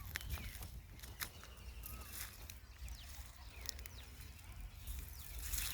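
Outdoor rural ambience: faint, scattered bird chirps over irregular rustling clicks and a steady low rumble.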